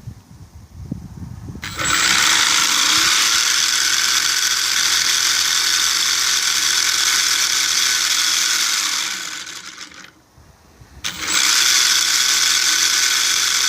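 3D-printed start-assist gearbox with PETG gears running, a steady whir with a high gear whine. It spins up about two seconds in, runs for around seven seconds, winds down, then starts again about eleven seconds in.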